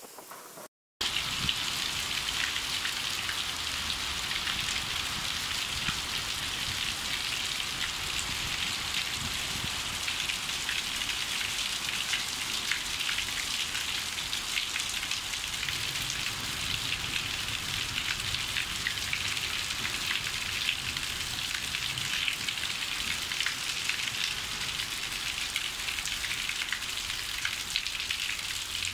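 Heavy rain falling: a steady, dense hiss full of fine individual drop hits. The sound cuts out for a moment about a second in, then carries on unchanged.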